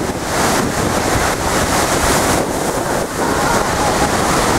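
Storm waves surging and breaking against a curved brick sea wall, with water washing over its top near the end. Strong wind buffets the microphone.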